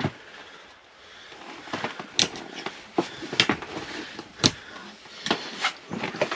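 Rustling of clothing and a series of sharp clicks and knocks as a jacket is hung on a coat hanger and gear is handled. The loudest knock comes about four and a half seconds in.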